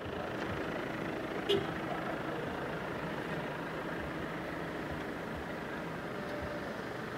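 Steady road and engine noise of a vehicle driving along a street, with one short sharp sound about a second and a half in.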